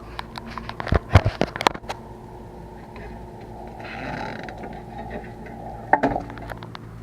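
Work noise from handling parts and tools during a brake job: a quick cluster of knocks and clicks about a second in, a short scraping rustle midway, and another knock near the end, over a steady low hum.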